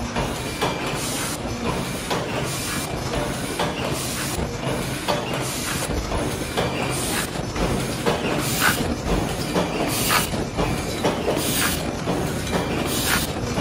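Paper take-away box forming machine running: a steady mechanical clatter with a repeating rhythm of knocks and short hisses, one every second or two.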